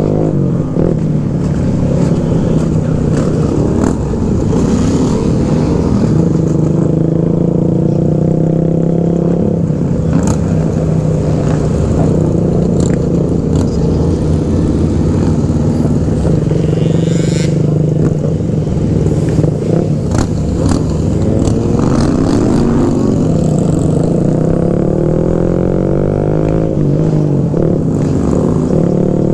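Small motorcycle's engine running steadily at riding speed, heard from the rider's seat with wind noise. The engine note rises and falls a few times, most clearly about two-thirds of the way through.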